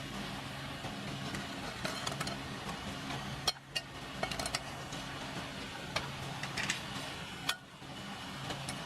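A vehicle engine running steadily, with a few sharp clicks. The sound drops out briefly twice, about three and a half and seven and a half seconds in.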